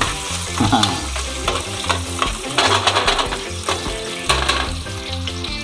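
Sliced shallots and garlic sizzling in oil in an aluminium mess tin, stirred with a metal spoon that scrapes against the tin now and then.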